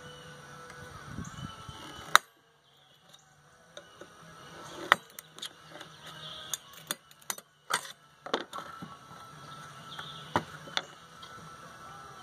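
Screwdriver prying and scraping at a microwave magnetron's sheet-metal housing: scattered sharp metallic clicks and knocks. The loudest comes about 2 seconds in, with a cluster in the middle and two more near the end.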